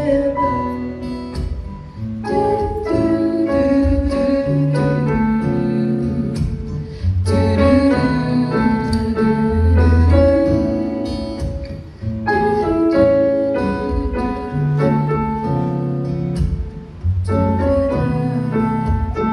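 Live performance of a slow jazz-pop song: piano and electric guitar accompaniment with girls' voices singing, pausing briefly between phrases.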